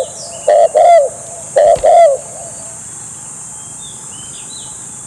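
Spotted dove cooing: two quick pairs of loud coo notes, ending about two seconds in, followed by faint high chirps of small birds.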